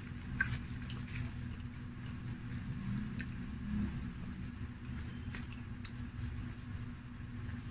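A person eating pizza: scattered soft chewing and mouth clicks, with crinkles of the baking paper as slices are picked up, over a steady low hum.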